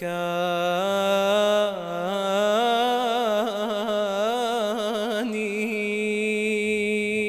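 A man singing a line of an Arabic nasheed in maqam style. He holds one long ornamented note with quick trills that breaks off about five seconds in, over a steady low drone.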